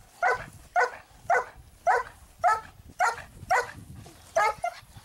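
A puppy barking at a helper during bite-work agitation: about eight sharp barks, roughly two a second, with a short gap near the end.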